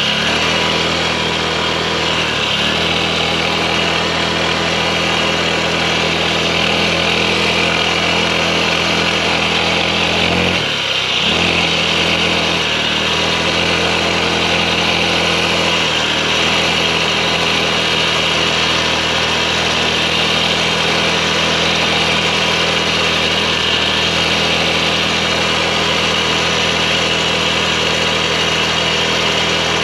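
Pocket bike's small engine running steadily under way, with a brief dip about eleven seconds in before it picks back up.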